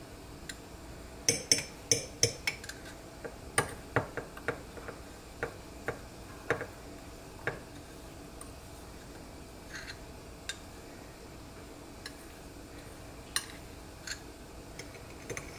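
Spoon clinking against the side of the container while ghee and milk powder are stirred into hot milk. A quick run of taps comes a little over a second in, then scattered taps that grow sparser.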